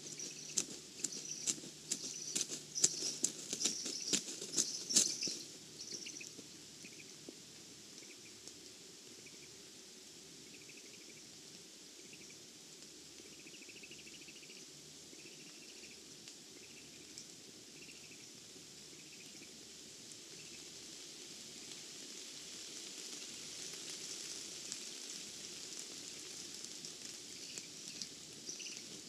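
Steady rain pattering in spruce forest. A run of sharp crackling clicks fills the first five seconds, and faint short high chirps repeat at intervals later on.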